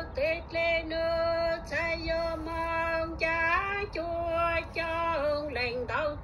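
A woman singing unaccompanied, a slow melody of long held notes joined by short sliding rises in pitch.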